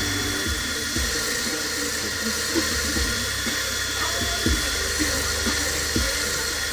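Cordless drill running steadily with an abrasive bit ground against a blade while sharpening, a continuous hissing grind. Background music's beat thumps underneath at regular intervals.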